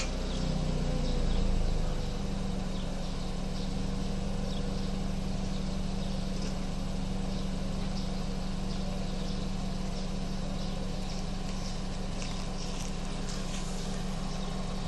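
BMW 328i F30's 2.0-litre turbocharged four-cylinder engine idling through its stock exhaust after a cold start. The engine note shifts and swells briefly in the first couple of seconds, then settles into a steady idle.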